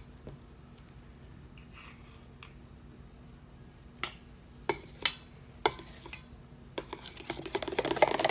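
A utensil knocks against a bowl a few times, then stirs and scrapes steadily through a thick mixture in the bowl, mixing in food colouring gel.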